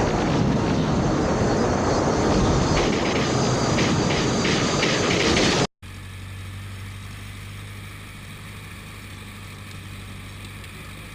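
Loud vehicle engine and road noise for about five and a half seconds, then a sudden cut to a quieter, steady engine hum.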